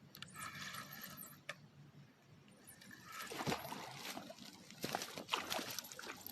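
Water splashing and knocking as a hooked fish is pulled in and landed, in irregular strokes that grow busier after a few seconds. A brief high buzz comes near the start.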